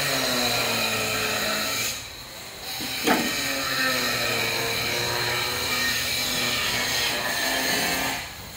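Electric power tool motor running under load, its pitch sagging and recovering as it works. It cuts out briefly about two seconds in, and there is a sharp click a second later.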